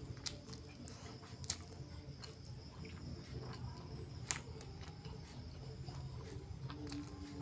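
Close-miked chewing of chicken liver and gizzard: soft, wet mouth sounds with a few sharp clicks, two in the first second and a half and one about four seconds in.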